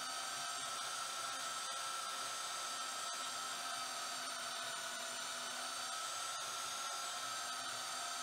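Vevor handheld portable metal-cutting bandsaw running steadily under load, its blade cutting through a thick block of steel: an even motor whine with several held tones over a hiss.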